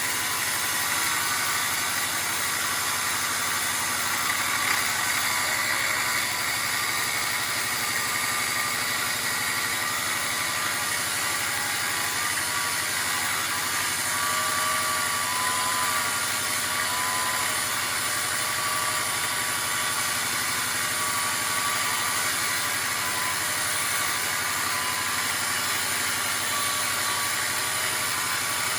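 A steady mechanical drone, like an engine or machine running, with a few faint wavering tones.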